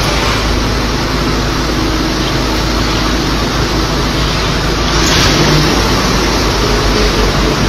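A car engine running as the car pulls away, under a loud steady hiss that gets a little louder about five seconds in.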